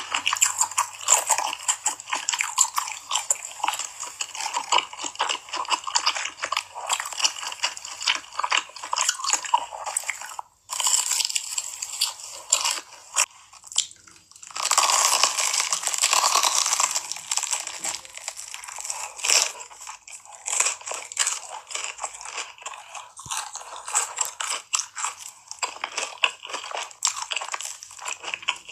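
Close-miked eating sounds: dense, irregular crunching and chewing of food. There is a brief pause about ten seconds in, and a louder, denser crunchy stretch just past the middle.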